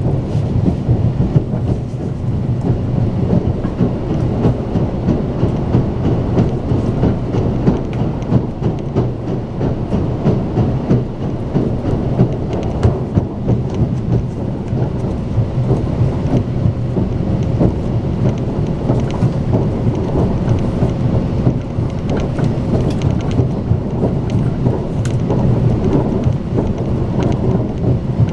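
Steady low rumble of a fast passenger train running on the rails, heard from inside the carriage, with scattered light clicks and rattles over it.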